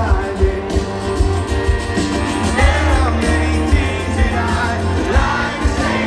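Live rock band playing a song with singing, heard loud from within the audience, with a heavy, pulsing bass and drum low end.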